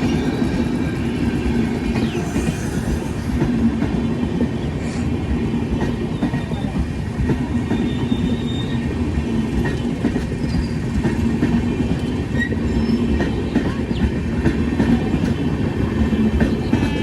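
Train running along the track: a steady rumble of wheels on rails with clattering over the rail joints.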